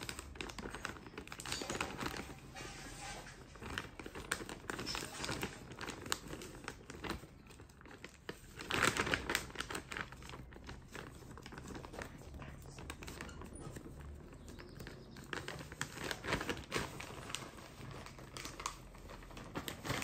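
Plastic Zwilling vacuum zip bag of groundbait being handled while its zipper is pressed shut along the top: soft crinkling of the plastic with small clicks, louder about nine seconds in.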